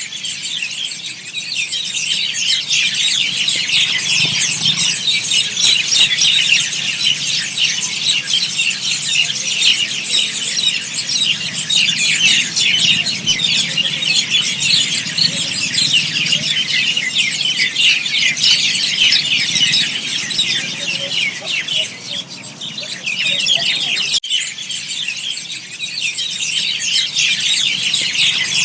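A large flock of small birds chirping and calling all at once as they gather in trees to roost at dusk, a dense, continuous high-pitched chatter. The chatter thins briefly about three quarters of the way through, with a single sharp click just after.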